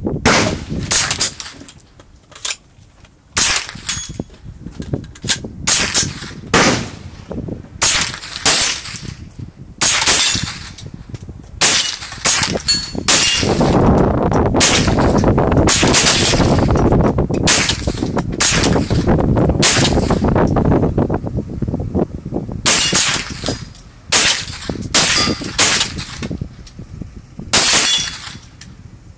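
.22 LR AR-15 rifle firing a long string of semi-automatic single shots, several dozen in all, mostly about one every half second to one second, with a short pause early on. A steady rushing noise runs under the shots for several seconds in the middle.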